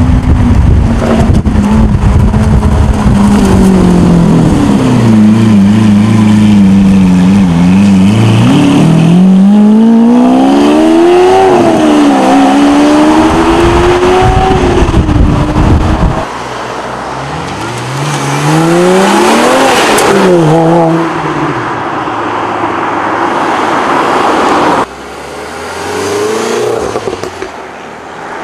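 Supercar engines accelerating hard, the exhaust note climbing and dropping repeatedly through upshifts. A deep, loud run cuts off suddenly about sixteen seconds in, and then another car revs up through its gears, with a further abrupt change near the end.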